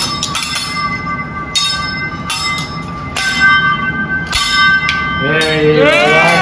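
Teppanyaki chef's metal spatula and knife clanging on the steel griddle: irregular sharp strikes that leave a steady metallic ring. Near the end a voice calls out, its pitch rising and then falling.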